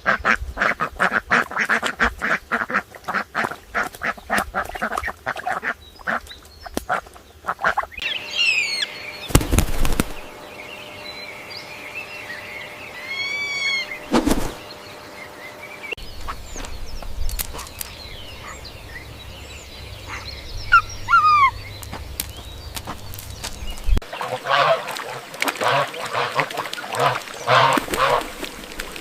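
Ducks quacking in fast runs of short calls, with a stretch of high, thin chirping calls in the middle and the quacking starting again near the end.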